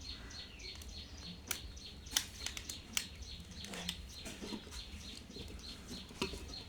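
A bird chirping, short high chirps repeated at about four a second, with scattered sharp clicks and taps.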